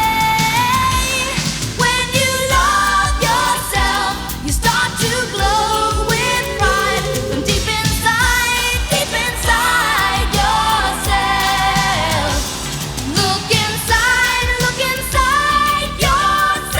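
1980s pop song: a sung lead melody over a steady beat and backing band.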